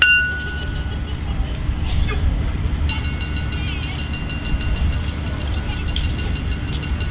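A struck metal bell rings out once at the start and dies away within about a second. From about three seconds in a steady high tone holds, with fast faint ticking above it, all over a low steady rumble.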